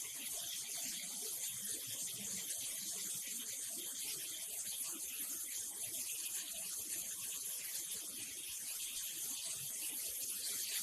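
Water rushing through plastic-flake washing equipment, a steady hiss with no breaks.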